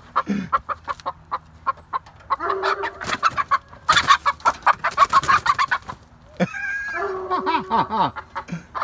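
Hens squawking and clucking in alarm as one is chased and grabbed in the pen, with a scuffle of sharp knocks and scrapes among the calls.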